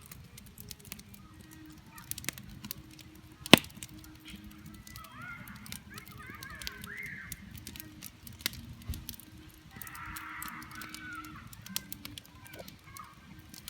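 Campfire crackling with scattered sharp pops, one much louder pop early on. Faint wavering calls come twice, in the middle and again about two-thirds through.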